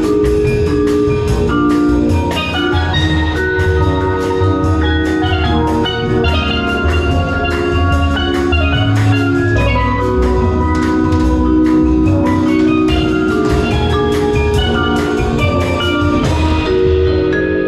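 Background music with mallet-percussion melody, like a marimba, over a steady beat.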